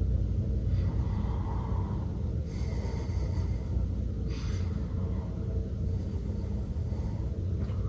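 A man breathing audibly through the nose, a few breaths, while holding a core-strength yoga pose, over a steady low hum in the room.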